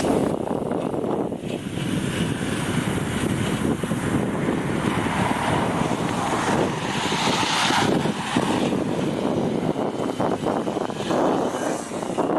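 Riding noise from a home-built e-bike driven by a washing-machine motor: a rough, uneven rush with wind on the microphone.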